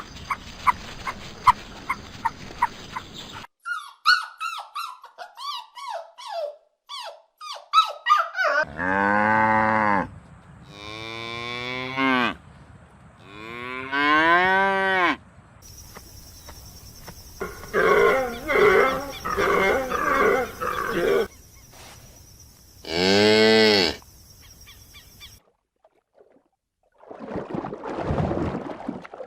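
Cattle mooing, several long calls, some falling in pitch, with short pulsed calls between them. A run of rapid clicks and short falling chirps comes first.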